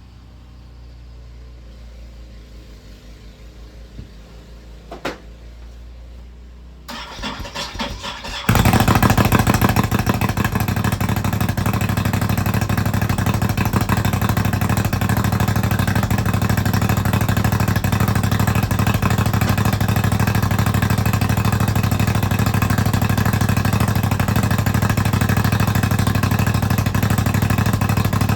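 An engine cranks and catches about seven seconds in, then runs loud and steady.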